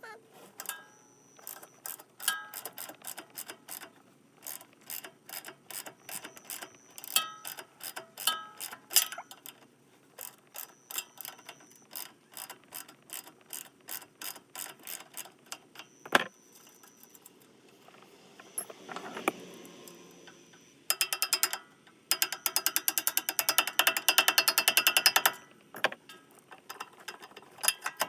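Hand socket ratchet clicking in short strokes as it works the rear shock mount bolt on a Honda Rubicon ATV, with a knock and a brief scrape past the middle, then a fast run of clicks for about four seconds near the end.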